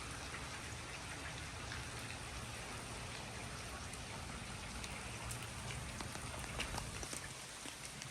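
Rain falling steadily: an even hiss with scattered sharp drop ticks.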